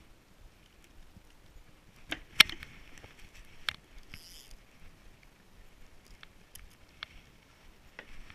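Handling noise from a fishing rod and spinning reel: a few scattered sharp clicks and knocks, the loudest about two and a half seconds in, and a brief high hiss near the middle.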